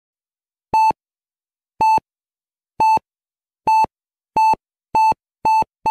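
Hospital heart-monitor beep sound effect: a single high beep repeats eight times, the gaps shrinking from about a second to under half a second as the pulse speeds up.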